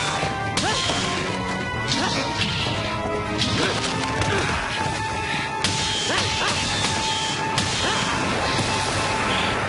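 Dubbed fight sound effects from a staged monster battle: a rapid run of punches, strikes and crashing hits, some with whooshes, over dramatic background music.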